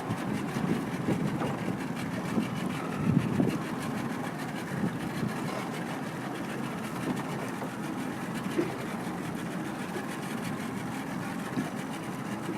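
Motorboat engine idling: a steady low rumble, with a few louder knocks in the first few seconds.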